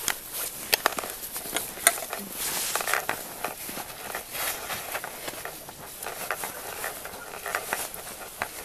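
Crunching and scraping of snow and ice under an ice climber's gear, with many irregular sharp clicks and cracks.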